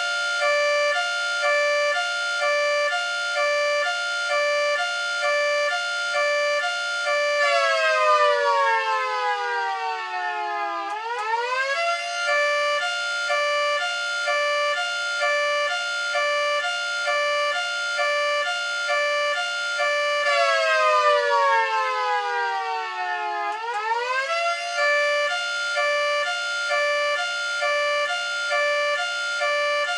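Miniature 3T22 rotor siren model sounding a two-tone hi-lo signal, alternating steadily between a high and a low pitch. Twice the pitch slides down over about three seconds and then sweeps quickly back up into the alternation.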